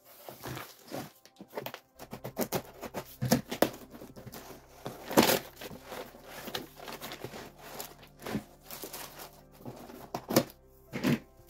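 Cardboard shipping box being handled and opened by hand: irregular knocks, scrapes and flap movements of the cardboard, with crumpled kraft packing paper rustling, over soft background music.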